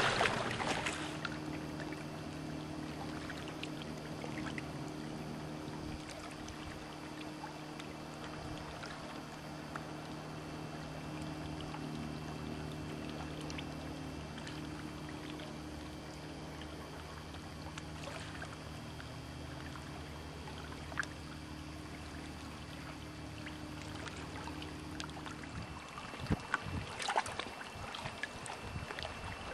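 A motorboat engine running at a steady speed, a low even hum that stops about 26 seconds in. Scattered knocks and water sounds follow.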